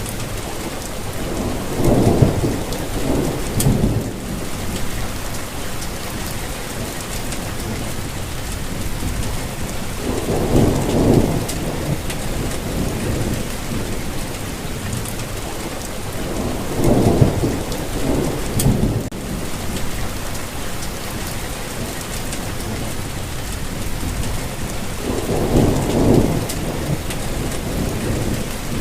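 Steady rainfall hissing evenly, with four low rumbles, each a second or two long and spaced about seven to eight seconds apart.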